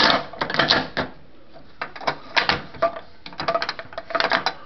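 Vintage coin-op capsule vending machine being worked: irregular clicks and knocks from its coin mechanism and turning crank as a 2-inch plastic capsule is vended.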